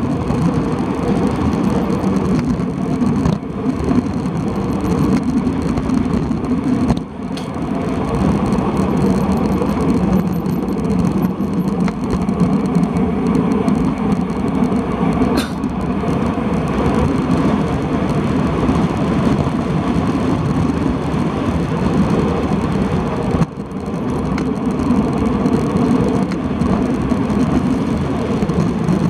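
Steady wind rushing over the microphone of a handlebar-mounted camera on a road bike descending a mountain pass at speed. The rush dips briefly twice, and there is a single sharp tick about halfway through.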